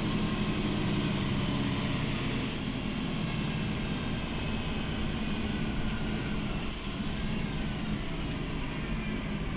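Cabin sound of a 2003 MAN NL263 city bus under way: its MAN D2866 inline-six diesel runs steadily under the rumble of road noise. The engine tone is less pronounced than just before, and two brief spells of hiss come about 2.5 and 7 seconds in.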